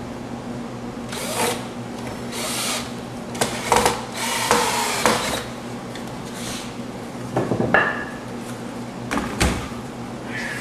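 Canvas being stretched by hand over a stretcher frame: a series of short scraping and rubbing sounds, each under a second, with a couple of sharp knocks.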